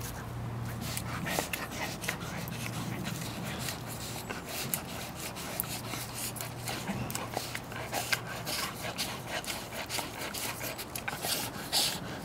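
A Siberian husky licking an Orapup bristled tongue-cleaner brush: a quick, irregular run of licks, tongue clicks and bristle rubbing.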